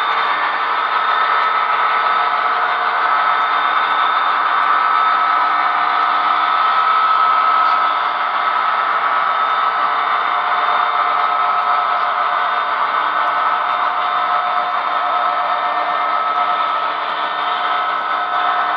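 Model train covered hopper cars rolling past on the track, their wheels making a steady rolling whir.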